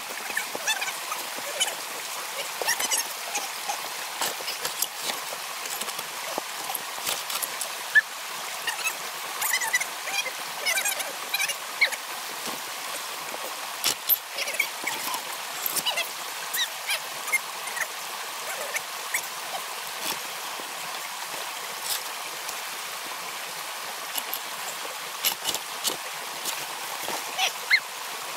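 Creek water running steadily over rocks, broken by frequent short splashes and knocks as a dirt bike is dragged and heaved about on the slick stones in the stream.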